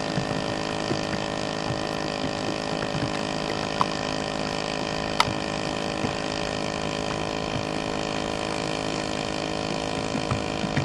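Weedwacker engine driving a remote-controlled boat, running on at a steady pitch. Two sharp clicks come about four and five seconds in.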